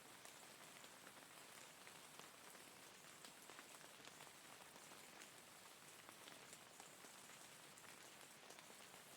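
Faint, steady rain: a continuous hiss with many individual drops ticking on a surface.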